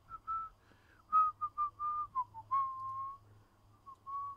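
A person whistling a tune: a run of short and held notes at about one pitch with a few dips, thinning out in the last second.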